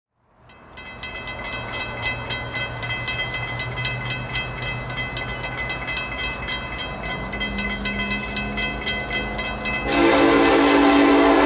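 An approaching train's locomotive horn, a Nathan K5LLA five-chime, blows a loud multi-note chord starting about ten seconds in. Before it there is the low rumble of the train still out of sight and a steady rapid ringing.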